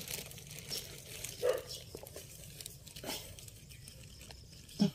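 A dog barks briefly a couple of times over the rustle of plastic sheeting being lifted and handled.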